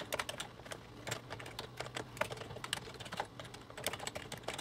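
Typing on a computer keyboard: irregular keystroke clicks, several a second, over a faint steady low hum.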